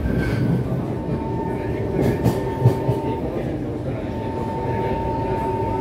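Kawasaki C151 metro car running at speed, heard from inside the carriage: a steady rumble of wheels on the track with a constant high whine. The whine fades out about halfway through and returns near the end, and there are a few sharp knocks a little over two seconds in.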